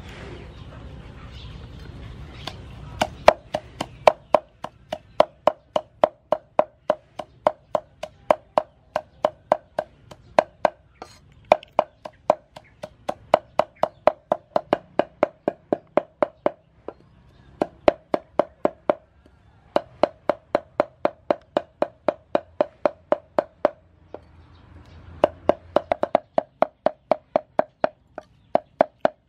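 Steel cleaver chopping dried red peppers on a round wooden chopping board: steady strikes about three a second, each a sharp knock with a short ring. The chopping starts about three seconds in and stops briefly a few times.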